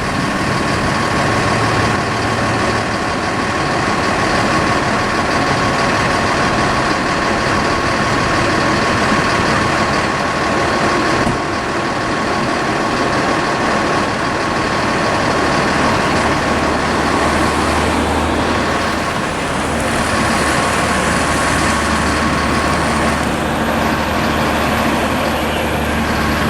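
Steady roadside vehicle noise with heavy truck engines running, a steady tone held throughout, and a deeper engine hum joining about two-thirds of the way through.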